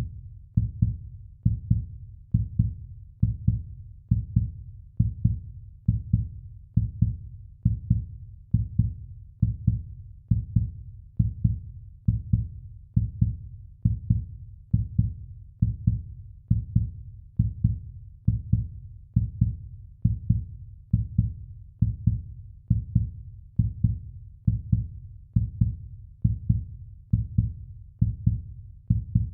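Heartbeat sound effect: a steady run of low, evenly spaced thumps, a little more than one a second.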